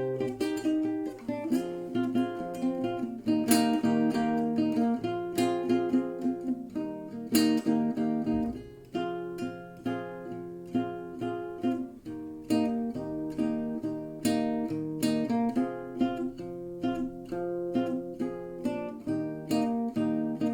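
Acoustic guitar playing a steady accompaniment of picked notes and chords, several sharp attacks a second.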